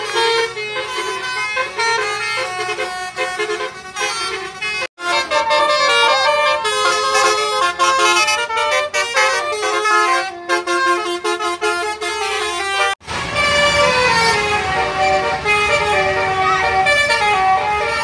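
Indonesian bus 'telolet' or 'basuri' musical air horns playing quick melodies of many stepping notes. The tunes break off abruptly twice, about five and thirteen seconds in, and a new horn melody starts each time.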